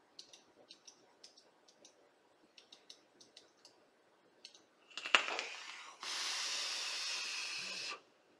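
Fire button of a homemade plastic box mod clicked over and over without the mod firing properly; the mod is giving trouble. About five seconds in there is a sharp click and a brief hiss, then a steady hiss of a drag on the vape for about two seconds, which cuts off sharply.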